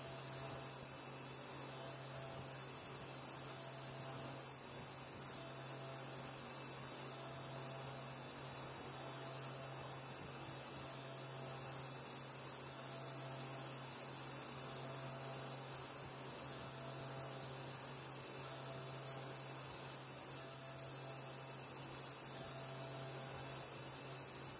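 CNC vertical milling machine running, a steady hum with a constant high whine, as its end mill cuts the magazine housing opening in a stamped sheet-metal rifle lower receiver. A faint tone comes and goes.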